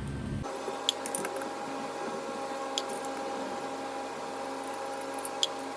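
Hand work on a metal water cooler: a few light, sharp clicks and taps of parts being handled, over a steady faint hum.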